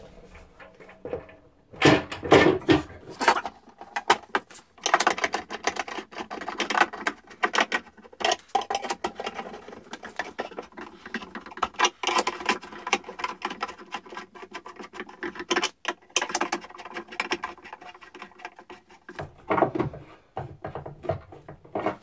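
Plastic cover being fitted onto a switch enclosure and its screws driven in with a hand screwdriver: irregular scratchy clicks and rattles, with a loud cluster about two seconds in and brief pauses.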